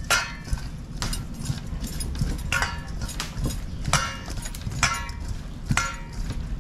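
Hands mixing seasoned fish in a stainless steel bowl, the bowl knocking and ringing briefly about six times, roughly once a second.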